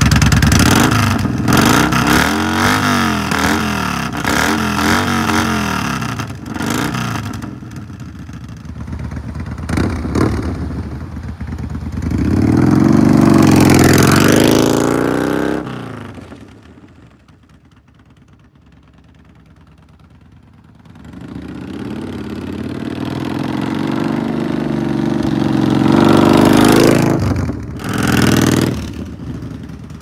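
Yamaha Bolt's 942 cc air-cooled V-twin running through a Vance & Hines Slasher full exhaust system. It is revved in quick blips at a standstill for several seconds, then ridden off, growing loud and fading to faint in the distance. It comes back louder near the end, with a last throttle blip.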